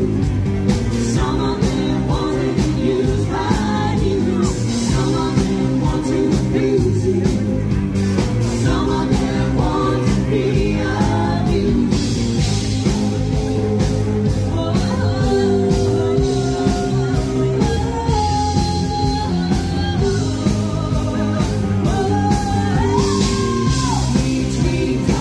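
Live rock band playing a song: a steady drum beat under guitar, with a lead singer.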